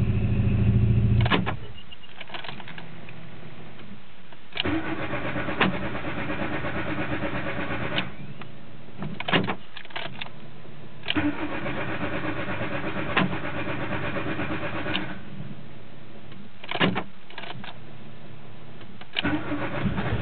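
Hard start on a VW Mk2 16-valve four-cylinder engine. It is running, then dies about a second in. The starter cranks it in several long spells with short clicks between them, without it firing, and the engine catches and runs again right at the end.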